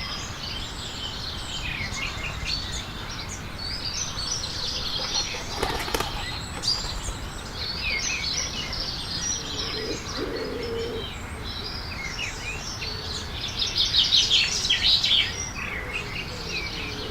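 Many small birds chirping and trilling together in a continuous dense chatter, with a low cooing about ten seconds in and again near the end.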